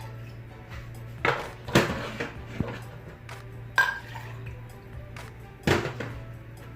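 A kettle and kitchenware being handled: about five clinks and knocks, one of them about four seconds in with a short metallic ring. Steady background music runs under them.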